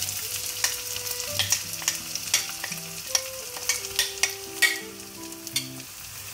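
Onion-tomato masala sizzling in a nonstick pan, with sharp taps and scrapes of a wooden spatula as ground spice paste is added and worked in.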